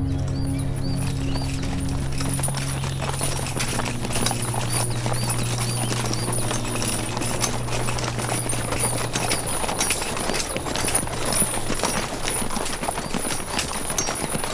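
Horses' hooves clip-clopping on a road: a dense, uneven run of hoof strikes from several horses. Background music fades out about ten seconds in.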